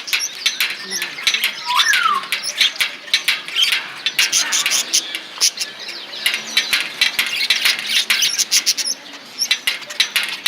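A group of pet lovebirds chattering: a dense, unbroken run of sharp, high chirps and squeaks from many birds at once.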